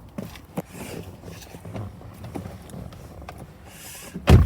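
Faint clicks and rustling of handling inside a car cabin, then one loud, short thump near the end.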